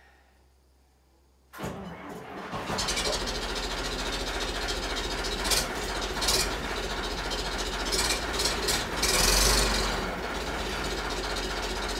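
The diesel engine of a 64-year-old Volvo loader tractor, an old engine without glow plugs, starts from cold about a second and a half in after an hour on a plug-in heater, then settles into steady running as it warms up.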